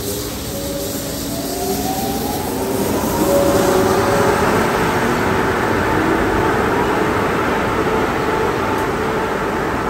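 Tunnel car wash machinery running. A whine rises in pitch over the first three seconds, then a louder, steady rush of air takes over from the drying blowers near the tunnel exit.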